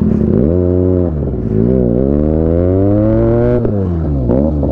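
Motorcycle engine revving over a steady idle: a short rev, then a longer climb in pitch held for a couple of seconds before it drops, then two quick blips near the end.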